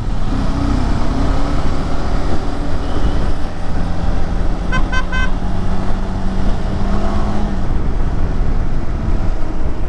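A KTM 390 Adventure's single-cylinder engine runs steadily under the rider as the bike accelerates on a wet road. About halfway through, a horn gives a quick string of four short beeps.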